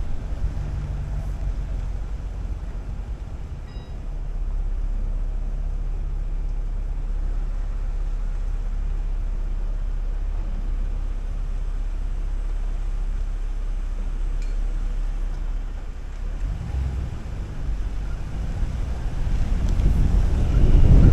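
Steady low rumble of a vehicle driving, with a faint steady hum of engine and road noise; it grows louder near the end.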